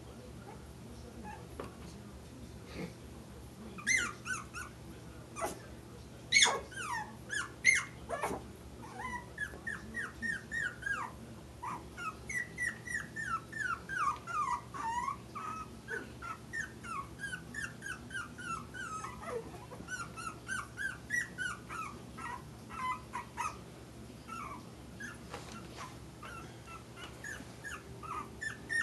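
Four-week-old Papillon-Maltese puppies yipping and whining as they play: a long string of short, high squeaks that fall in pitch, several a second, with a few louder, sharper yelps about four to eight seconds in and a short lull near the end.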